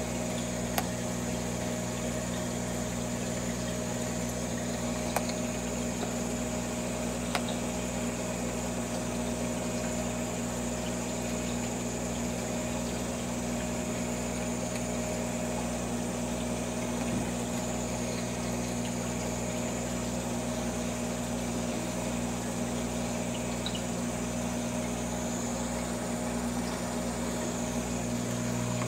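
Aquarium pump humming steadily, with a faint high whine over it and a few soft clicks; the hum grows louder near the end.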